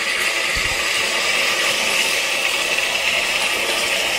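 Green beans sizzling and bubbling in a hot pan on high heat, a steady hiss as the last of the cooking water boils off, with a brief low bump about half a second in.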